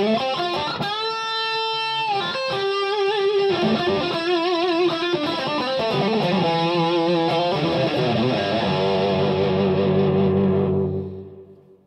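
Overdriven electric guitar lead through a Kemper Profiler's boosted Marshall profile and a Marshall cabinet: held notes with wide vibrato, then a low ringing note that fades out about eleven seconds in.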